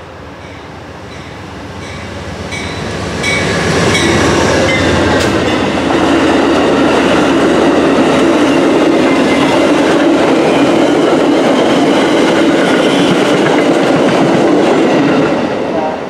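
Amtrak passenger train passing through at speed: its rumble and the wheels clacking over the rails grow louder over the first few seconds as it nears, stay loud and steady while the cars go by, then fall away as the last car passes near the end.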